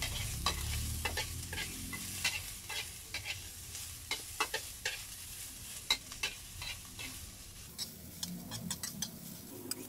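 Garlic, onion and ginger sizzling in hot oil in a wok while a spatula stirs and scrapes them, with frequent sharp clicks throughout.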